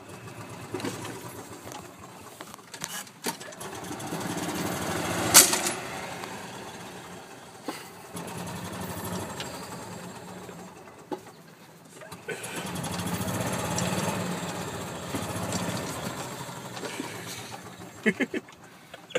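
Golf cart running along the path, its low engine hum rising and falling twice, with one sharp click about five seconds in.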